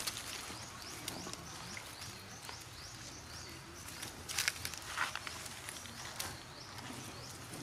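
Outdoor ambience: a run of short, high chirps repeating about three times a second, with rustling and two louder knocks or footfalls about four and a half and five seconds in.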